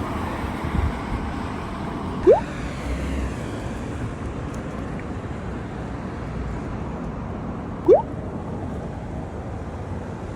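Steady outdoor background rumble, like road traffic, with two short rising squeaks, one a couple of seconds in and one about eight seconds in.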